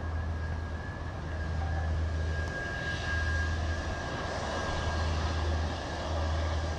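Irkut MC-21-310 airliner taxiing on its Aviadvigatel PD-14 turbofan engines: a steady high whine over a low rumble, the whine fading near the end.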